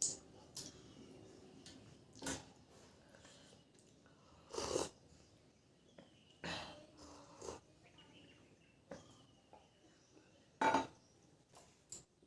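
Eating noises from a person eating rice and curry by hand: a scattering of short smacks and rustles with pauses between them, the loudest near the end.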